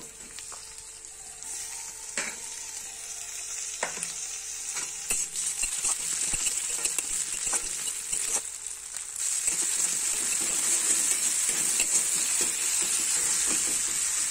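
Chopped onion, tomato and ginger-garlic paste sizzling in hot oil in a metal kadai, with a metal spatula scraping and tapping the pan as the mix is stirred. The sizzle grows louder about nine seconds in.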